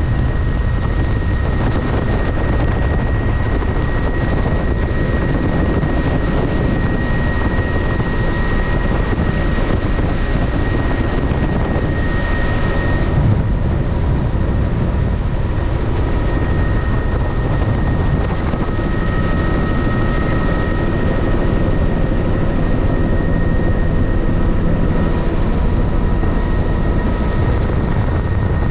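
Helicopter rotor and engine noise heard from inside the cabin in flight: a steady, loud din with a constant high whine running through it.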